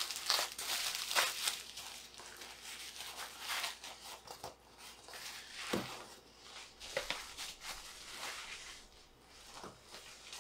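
Plastic bubble wrap crinkling and rustling as it is pulled off a cardboard box and bunched up, loudest in the first couple of seconds, then softer. A few soft knocks come later.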